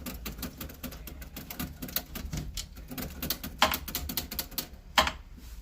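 A 40–50-year-old Hindi-script typewriter being typed on: a quick, irregular run of key strikes with two louder clacks in the second half.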